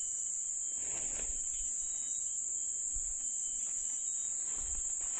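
Insects in the bankside vegetation making one steady, high-pitched drone without a break, with faint rustling and low thumps underneath.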